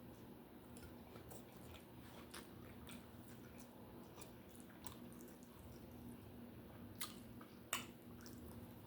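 Faint chewing and wet mouth clicks of someone eating a cheeseburger and fries, over a steady low hum, with two sharper clicks near the end.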